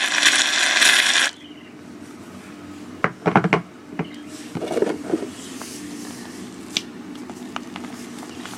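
Slime being mixed and handled: a loud hiss for just over a second at the start that cuts off abruptly, then scattered clicks and scrapes, with a quick cluster of knocks about three seconds in and a short rustling burst near the middle.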